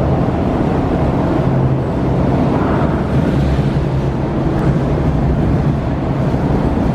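Steady low hum and rumble of a car ferry's engines, heard on the vehicle deck.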